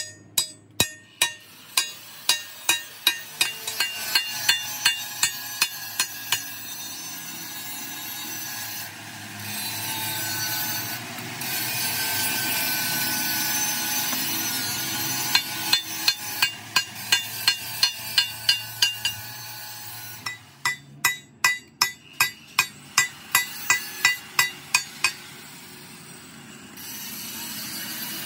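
Runs of sharp metal hammer strikes, about two to three a second, on a freshly welded steel patch plate on a truck axle, knocking the slag off the bead. In the middle comes a stretch of steady crackling hiss from a stick-welding arc laying down the weld.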